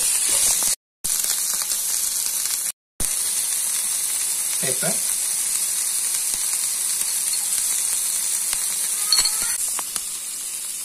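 Sliced onion, bell pepper, banana chili and curry leaves sizzling steadily in hot oil as they are stir-fried with a wooden spatula. The sound cuts out twice briefly in the first three seconds.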